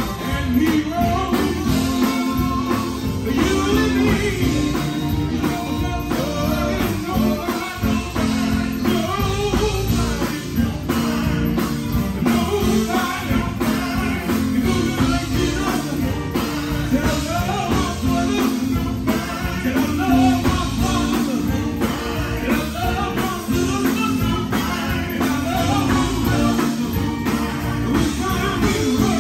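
Live gospel quartet song: a lead singer and backing vocals over a full band of electric guitar, bass and drums, with a steady driving beat.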